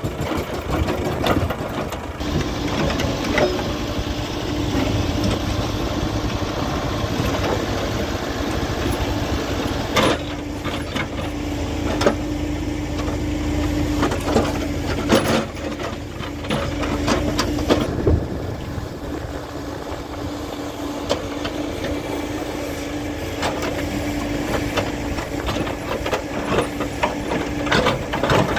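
Hydraulic breaker on a Hidromek HMK 102 backhoe loader hammering its chisel into rock, a rapid, steady train of blows with a few sharper knocks. Under it runs the machine's diesel engine, held at a steady working speed.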